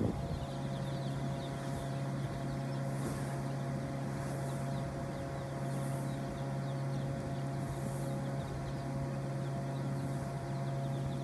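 A steady mechanical hum from a running motor, even throughout, with many broiler chicks peeping faintly over it.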